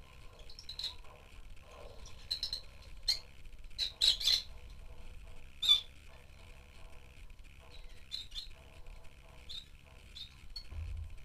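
Rosy-faced lovebirds chirping: scattered short, sharp, high chirps, with a quick cluster about four seconds in and the loudest single chirp shortly after.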